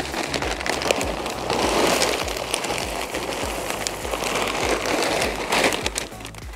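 Small hard carp feed pellets poured into a bucket of groundbait, a continuous rattling patter of many small clicks that thins out near the end.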